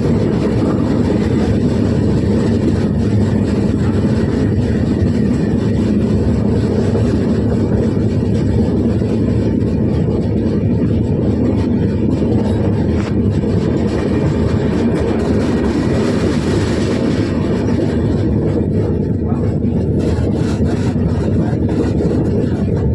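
A train running, a steady, loud, low rumble that holds even, with a few faint ticks near the end.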